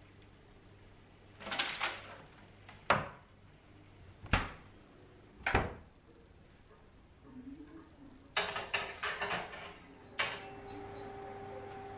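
Household handling sounds: four separate sharp knocks a second or so apart, like cupboard doors or drawers shutting, then a quick run of small clicks and clatters. A click about ten seconds in is followed by a steady low hum that runs on.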